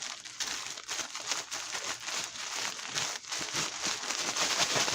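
A bag of seasoned breadcrumbs with a chicken breast inside being shaken by hand: a continuous crinkling rustle with irregular shakes, as the breast is coated in the crumbs.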